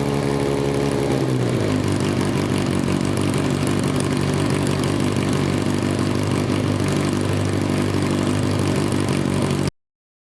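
Yamaha XJR400's air-cooled inline-four engine running. Its revs drop about a second and a half in, and it then settles into a steady idle; the sound cuts off suddenly near the end.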